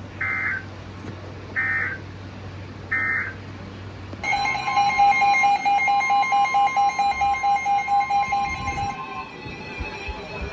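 Emergency Alert System tones on a NOAA Weather Radio broadcast. Three short bursts of warbling digital data tones (the SAME code) come first. About four seconds in, the steady two-tone attention signal starts and holds for about five seconds, announcing a new warning.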